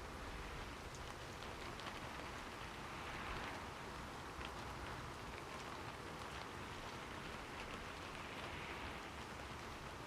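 Steady rain falling, an even hiss with faint scattered drop ticks, at a soft level.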